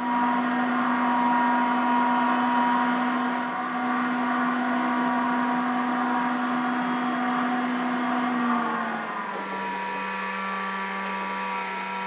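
Bench grinder running steadily while a small metal lighter part is ground on its wheel. About nine seconds in, the sound changes to a slightly lower, quieter steady whine: a flex-shaft rotary tool with a small sanding drum.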